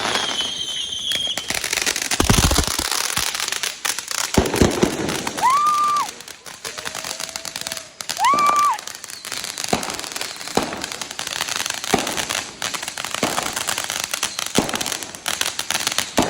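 Fireworks going off: a dense crackle of firecrackers in the first few seconds, then scattered sharp bangs, with a short whistling tone at the start and two more about five and eight seconds in.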